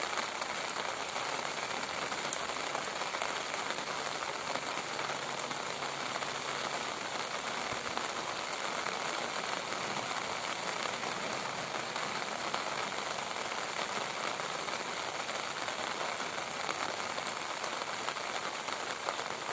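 Rain falling steadily: a dense, even patter of drops hitting a surface, holding the same intensity throughout.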